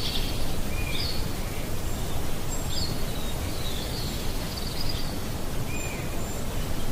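Outdoor ambience: steady low background noise with a few faint, short bird chirps scattered through it.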